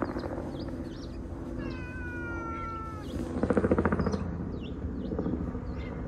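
A cat meows once, a long meow that falls slightly in pitch, lasting about a second and a half and starting about a second and a half in.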